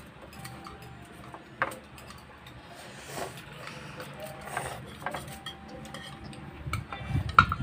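Eating noises: chopsticks clicking and scraping against plastic and ceramic bowls, with a few short slurps of ramen noodles and broth. The loudest knocks come near the end.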